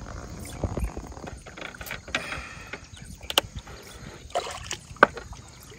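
Water lapping against a small boat's hull, with a few sharp clicks and knocks; the sharpest comes about five seconds in.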